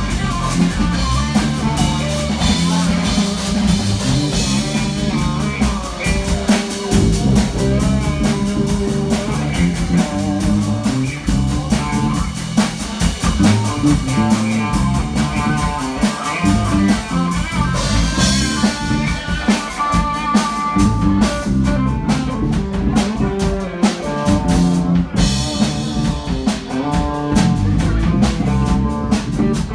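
A live band playing: guitar over a steady drum kit beat.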